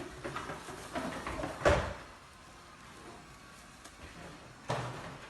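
Faint handling noises with a short sharp knock about a second and a half in, and another softer knock near the end.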